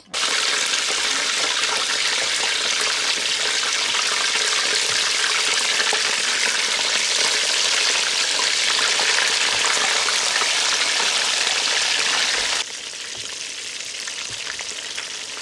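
Pieces of seasoned fish deep-frying in a pot of hot oil: a dense, steady sizzle with fine crackling. It drops noticeably quieter all at once near the end, still sizzling.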